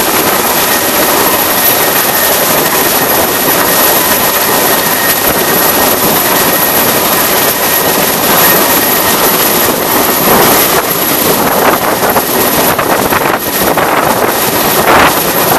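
Mil Mi-171 twin-turbine transport helicopter hovering close overhead: a loud, steady rotor and engine noise with a thin high whine, and rotor downwash buffeting the microphone in ragged gusts over the last few seconds.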